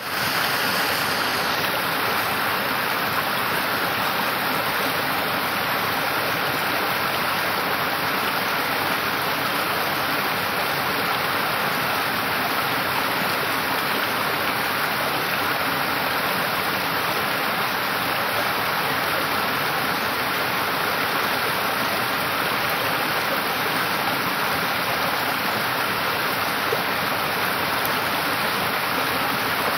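Small mountain stream cascading down a series of rock steps, the water rushing and splashing steadily.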